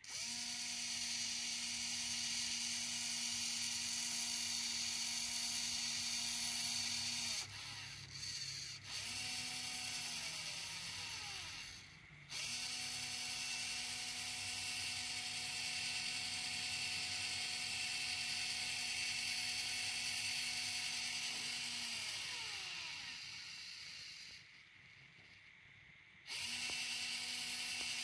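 Hobby servo converted to a continuous-rotation winch servo, its small motor and gear train whirring with a steady whine as it drives a timing belt along the rail. It runs for several seconds at a time, stops with a falling whine as it spins down twice, and starts again near the end.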